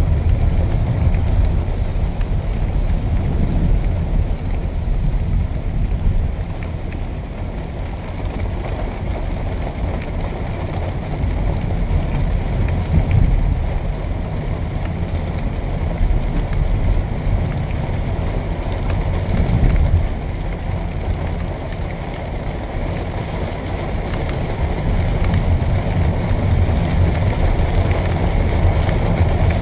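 Steady low rumble of road traffic with a light hiss of rain, rising and falling slightly in level.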